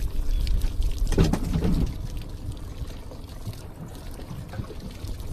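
Water pouring and sloshing on a fishing boat over a steady low rumble, with a louder stretch about a second in.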